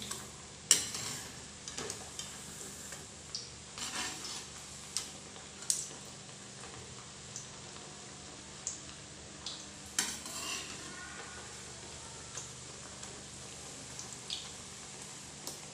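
Mathri deep-frying in a kadhai of lightly heated oil on a low-to-medium flame, with a steady soft sizzle. A perforated steel skimmer stirs and turns them, clinking against the pan a few times.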